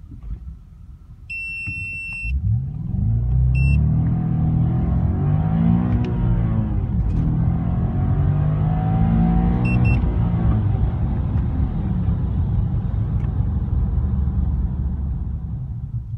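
Audi S5's 4.2-litre V8 heard from inside the cabin, revving hard from a standing start through first gear, its pitch dropping at the shift into second about six seconds in and climbing again, then easing off as the car slows. Electronic beeps sound over it: a long beep about a second and a half in, a short one at about three and a half seconds, and a quick double beep around ten seconds in.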